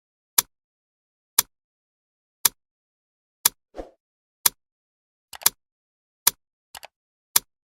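Alarm clock ticking, one sharp tick about every second, with a few fainter extra clicks and a short soft rustle about four seconds in.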